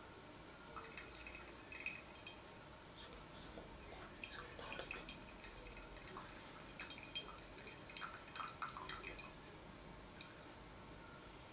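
Faint dripping and small splashes of hot water, scattered and irregular, as tea-brewing water drips and trickles over the tea things.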